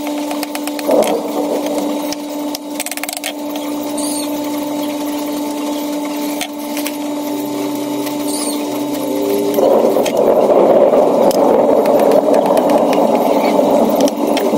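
A steady motor hum holding one pitch, which turns louder and rougher about ten seconds in. Faint knife taps on a wooden cutting board as mango is sliced.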